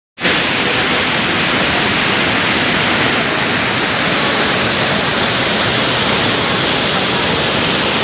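Loud, steady rush of water from a waterfall and the fast-flowing stream below it.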